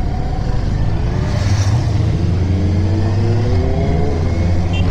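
Kawasaki motorcycle engine accelerating hard, its pitch climbing for about two seconds and then dropping at a gear change, over wind and road noise.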